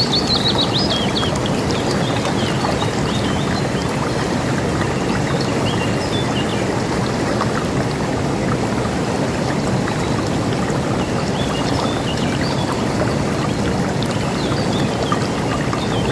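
A river rushing steadily, with songbirds chirping over it: a quick falling trill right at the start and scattered short chirps later on.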